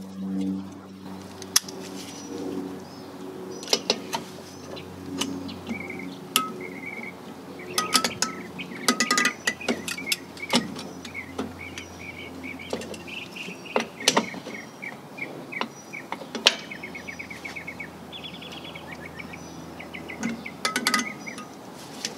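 Sharp metallic clicks and clinks of locking pliers working a drum-brake shoe hold-down spring and pin into place, scattered irregularly. Birds chirp repeatedly and faintly behind them.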